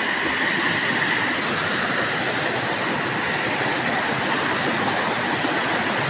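Small waterfall's water rushing steadily over rock ledges, a continuous even rush.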